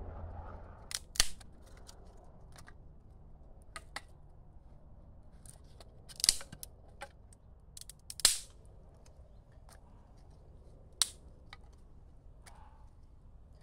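Dry wood cracking and snapping: about ten sharp, irregular cracks, the loudest just after a second in, around six seconds and around eight seconds, some with a short crackling tail.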